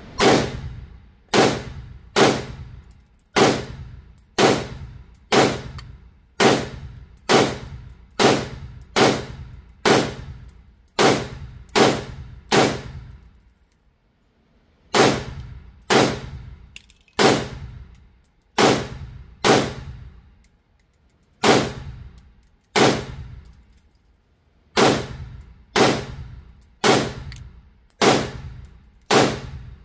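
Pistol shots fired one at a time at a steady pace, about thirty in all, each sharp report followed by a ringing echo; the firing pauses briefly twice, about halfway through and again near the end.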